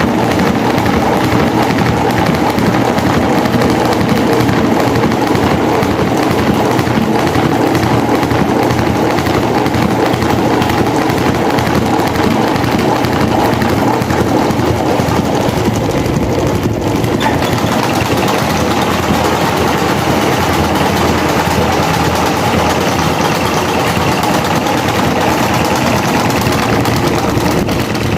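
Electric fan with a broken blade running at speed, a loud, steady fast rattle that goes on without a break.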